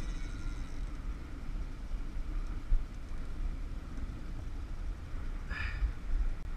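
Steady low rumble of wind and water noise on a boat-mounted microphone, with a brief knock a little under three seconds in and a short higher-pitched sound about five and a half seconds in.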